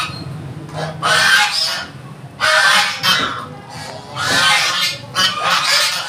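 Domestic geese honking loudly, about four harsh calls in a row.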